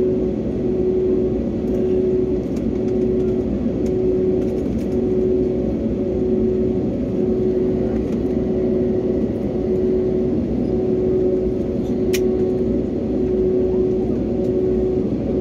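Jet airliner's engines running steadily, heard inside the cabin as it taxis: a low, even drone with a hum that pulses about once a second. A single sharp click comes about twelve seconds in.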